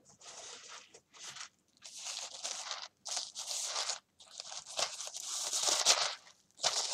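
White tissue-paper wrapping crinkling in a string of short rustles as a small gift package is handled and its purple ribbon is pulled off, the longest rustle near the end.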